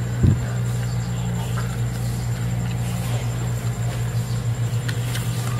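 A steady low hum of a small engine or motor running throughout, with a brief short sliding sound about a quarter of a second in.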